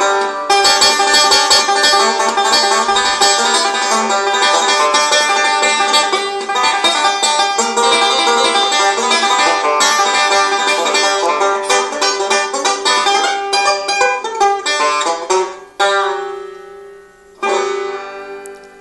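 Solo resonator banjo picked rapidly in a bluegrass style. Near the end the fast picking stops, and two final chords are struck and left to ring out.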